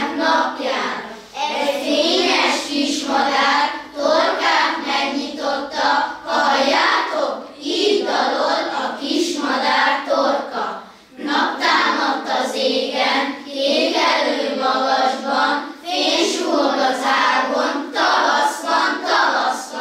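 A class of schoolchildren singing a song together as a choir, in long phrases with short breaks between them.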